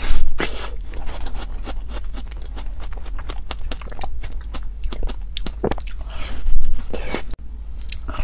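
Close-miked eating of red ice-cream treats: wet bites and chewing with many small sticky mouth clicks. Two louder bites come, one right at the start and one about six and a half seconds in.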